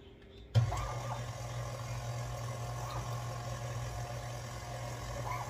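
KitchenAid stand mixer switched on about half a second in, its motor then running with a steady hum as it drives the fruit and vegetable strainer attachment.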